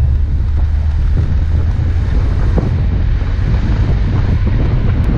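Steady low rumble of a 4x4 driving along a snow-covered track, with wind buffeting the bonnet-mounted action camera's microphone.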